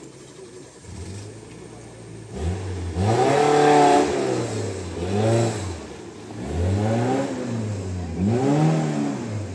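Suzuki Gypsy's engine revving hard under load as it climbs a steep mud slope, its pitch rising and falling in several bursts from about two and a half seconds in.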